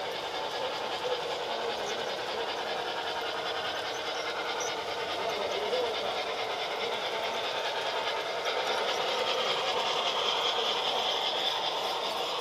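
Model train running on its track: a steady rolling rattle of the wheels and motor as a model steam locomotive hauls a long string of hopper cars past, growing a little louder after about eight seconds.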